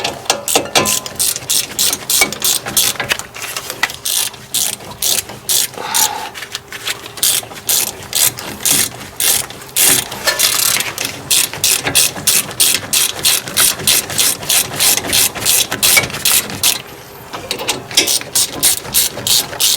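Hand ratchet with a hex (Allen) bit socket clicking as it is worked back and forth to tighten the brake caliper bolts. It gives a steady run of sharp clicks, about three a second, with a short pause about three-quarters of the way through.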